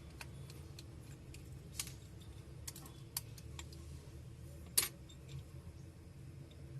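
Scattered light clicks and taps of small hand tools on a smartphone's plastic and metal parts as it is being opened, with one sharper click about three-quarters of the way through, over a faint low hum.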